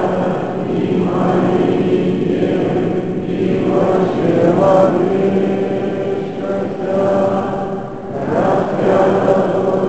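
Orthodox church choir singing liturgical chant: a steady held low note under a slowly moving melody, which rises near the end.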